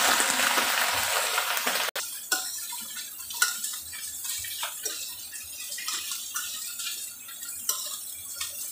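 Water pouring into a hot stainless-steel wok and hissing, which stops abruptly about two seconds in. Then a metal spatula scrapes and clicks against the wok as the fried eggplant is stirred.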